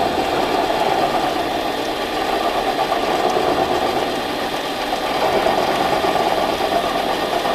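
Harbor Freight mini lathe running steadily, its spinning metal shaft being turned by the cutting tool taking a light cut of a couple thousandths.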